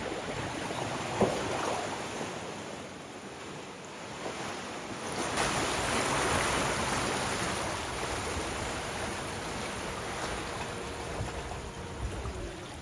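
Floodwater rushing and splashing across a flooded ford, a steady wash that swells about five seconds in. There is one sharp knock about a second in.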